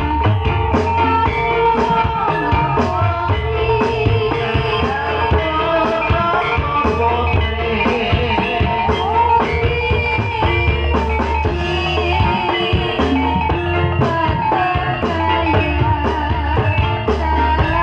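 Live music accompanying an ebeg hobby-horse dance: Banyumasan gamelan and drums in an amplified dangdut-style arrangement, playing continuously with a steady beat and melodic lines over it.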